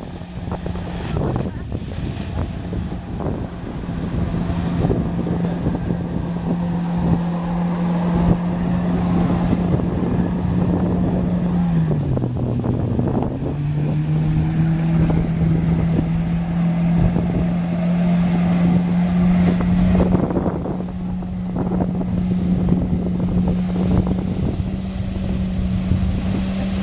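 Personal watercraft engine driving a Flyboard through its hose, a steady drone with the hiss of the water jets. Around twelve seconds in the engine drops in pitch as the throttle comes off, then climbs back up and holds steady.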